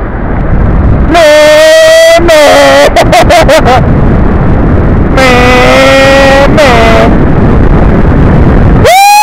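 Wind rushing over the helmet camera of a moving motorcycle, with no clear engine note. Over it come long pitched calls: one about a second in that holds steady and then wavers, another about five seconds in, and one that rises and falls near the end.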